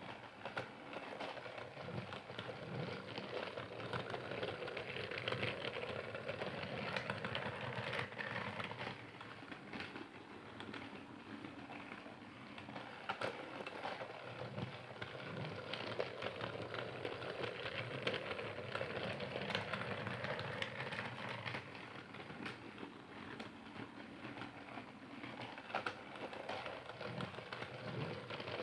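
A Percy toy train running steadily, its small motor and wheels giving a continuous clatter full of quick little clicks.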